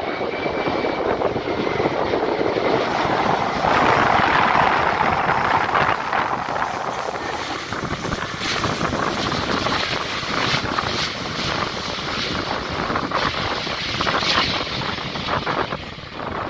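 Jet engine noise of a British Airways Airbus A380 with Rolls-Royce Trent 900 engines: a loud, sustained rumble that swells about four seconds in, then turns rough and crackling through the second half.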